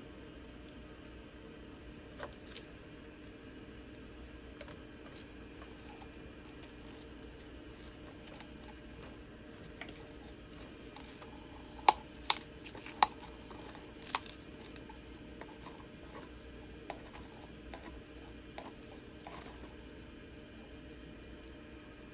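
Steady low room hum with scattered light clicks and taps, and a few sharper clicks about halfway through, from handling a cup and a small coaster mold while leftover resin is poured into it.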